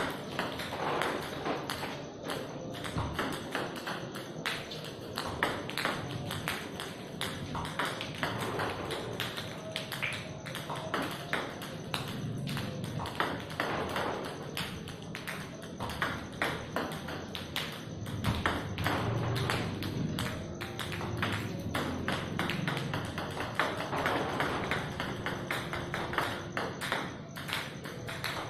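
Table tennis balls clicking off a paddle and bouncing on the table and concrete floor during repeated practice serves: a rapid, irregular run of sharp taps.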